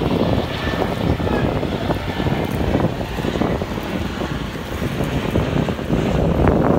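Twin outboard motors of a speedboat running as it pulls away, under gusty wind buffeting the microphone.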